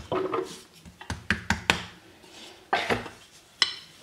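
Wooden rolling pin knocking and rolling on a floured granite countertop as roti dough is rolled out. The knocks are sharp and irregular, with four quick ones a little after a second in and a few louder ones near the end.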